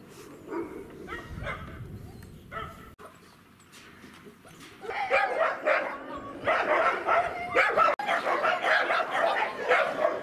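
A pack of shelter dogs barking: a few scattered barks at first, then many dogs barking over one another from about five seconds in.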